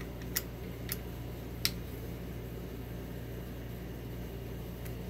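Three sharp metallic clicks in the first two seconds and a faint one near the end as a hex key works a screw on a mini lathe's steel tool post, over a steady low hum.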